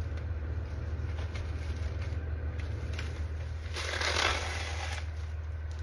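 Rustling and crunching as the cover of a shot-up ceramic armor plate is peeled back and its shattered ceramic pieces shift, with a louder scraping rustle about four seconds in.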